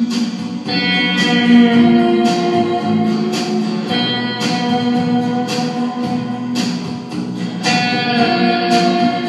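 Background music led by guitar, with sustained notes and a steady beat.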